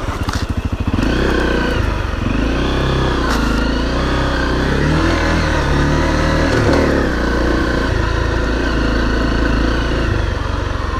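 Honda CRF250L dual-sport motorcycle's single-cylinder four-stroke engine, heard from the rider's seat. It chugs at low revs in the first second, then revs rise and fall repeatedly as the bike is ridden along a trail.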